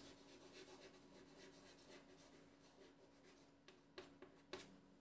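Faint scratching of writing as a definition is written out, with a few light taps in the second half, over a faint steady hum.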